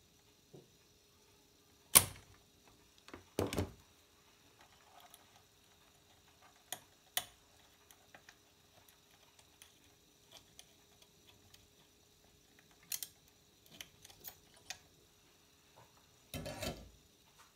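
Scattered sharp clicks and knocks of tools and a TV circuit board being handled on a wooden workbench, the loudest about two seconds in, over a faint steady hum.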